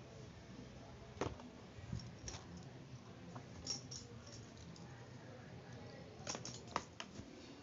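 Stationery handled on a cardboard game board: a few light knocks and clicks as a metal paint tin is set down and plastic markers are moved, with a quick cluster of clicks near the end.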